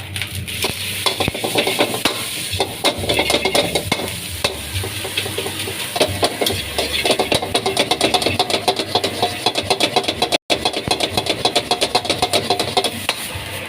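Metal spatula scraping and striking a wok in quick, steady strokes while fried rice sizzles in the hot pan. The sound briefly cuts out once, about three quarters of the way through.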